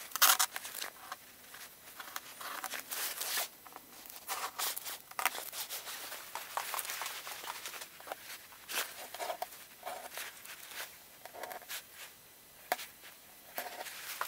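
Irregular rustling, scraping and light knocks of materials being handled by hand, in short scattered bursts with brief quiet gaps.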